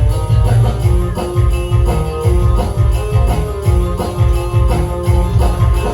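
Band music in an instrumental stretch without singing, with a heavy, regular bass beat under sustained melody notes and jingling percussion.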